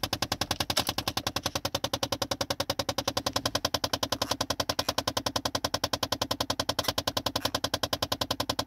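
Rapid, even clicking from inside the dashboard of a 2007 Chevrolet Impala, about eight clicks a second, going on with the key out. It is the sign of something sticking inside the dash.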